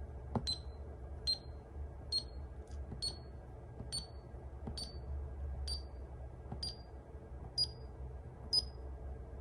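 Security alarm keypad giving a short high beep with each press of its scroll button, ten beeps about one a second, each a little higher in pitch than the last, as the buzzer control is stepped through its tone settings toward mute.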